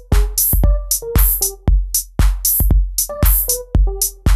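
Drum loop playing in Maschine at about 116 beats a minute: deep kick and bass hits with bright hi-hat and snare hits. Between them runs a string of short arpeggiated keyboard notes at changing pitches, played by Maschine's arpeggiator.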